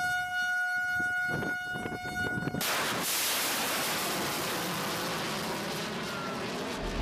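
A steady horn-like warning tone with a few clicks, cut off about two and a half seconds in by the sudden loud rushing roar of a missile's rocket motor launching from a warship's vertical launch system, which carries on steadily.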